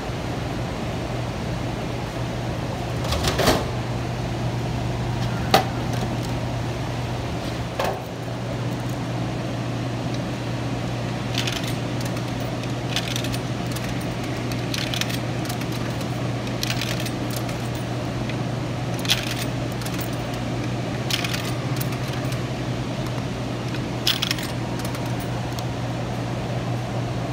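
Coins dropped one at a time into a vending machine's coin slot: a run of short metallic clinks, a few early on and then about one every second and a half to two seconds through the middle of the clip. A steady low machine hum runs underneath.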